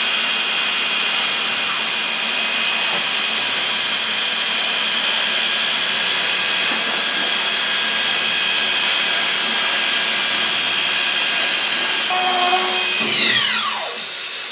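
Bridgeport Torq-Cut TC4G CNC mill's spindle running at 2500 RPM with a steady high whine over a hiss, then spinning down near the end, the whine falling steeply in pitch as the program finishes.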